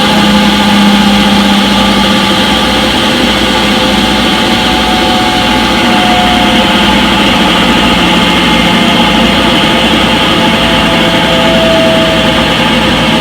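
Front-load washing machine in its spin cycle, the drum spinning at speed with a steady loud hum and whine that slowly fall in pitch.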